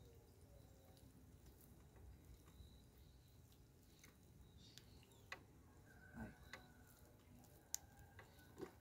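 Near silence, with a few faint scattered clicks in the second half.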